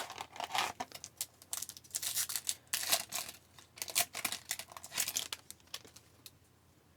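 Hockey card packs being handled: the wrapper crinkling and tearing and the cards flicking, a busy run of crackles and clicks that stops about six seconds in.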